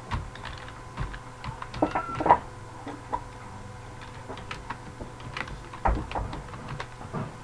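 Computer keyboard being typed on: irregular key clicks in uneven runs, over a steady low hum.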